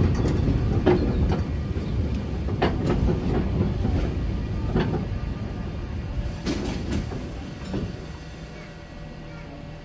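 Sóller's vintage wooden electric tram running on its rails: a low rumble broken by irregular clicks and knocks from the wheels and the car body. The rumble fades over the last couple of seconds as the tram slows.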